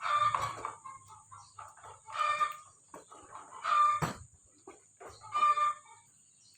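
A chicken clucking: four short calls about a second and a half apart, over a faint low hum.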